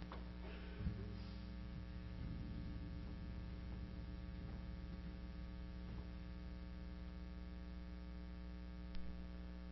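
Steady electrical mains hum, a low buzz with its overtones, with a short click about a second in and another near the end.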